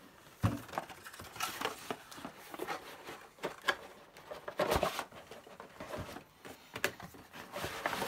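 Rustling, scraping and light knocks of a cardboard software box being opened and its contents handled, a cluster of louder rustles just before the middle.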